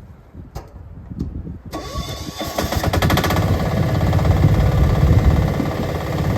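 Mini excavator's diesel engine starting: a few faint knocks, then the engine catches suddenly a little under two seconds in and runs, getting louder over the next second or two.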